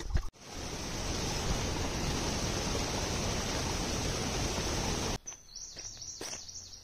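A steady rushing noise, even across the range, that cuts off abruptly about five seconds in. A bird chirps faintly in the quieter stretch after it.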